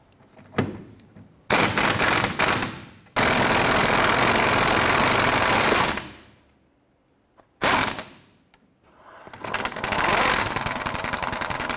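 A 1/2-inch impact gun with a 15/16-inch socket hammering on a rusty lower trailing-arm bolt to break it loose and back it out. There are a few short bursts, then a steady run of about three seconds that cuts off suddenly, a brief blip after a pause, and a last run that builds up and keeps going.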